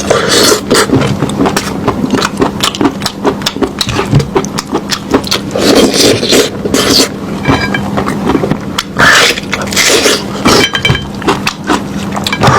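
Close-miked chewing and eating of lamb meat: a dense, irregular run of clicks over a faint steady hum.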